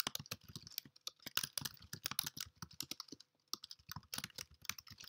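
Typing on a computer keyboard: a quick, irregular run of key clicks with a short pause a little past the middle.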